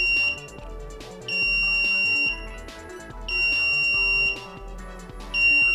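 Piezo buzzer driven by an Arduino Uno, beeping a steady high-pitched tone for one second and falling silent for one second, over quiet background music. One beep ends just after the start, and three more begin about two seconds apart.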